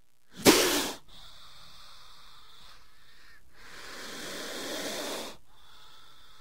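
Snake hissing: a sharp, loud hiss about half a second in, then a longer hiss that swells and stops about five seconds in, over a faint steady hiss.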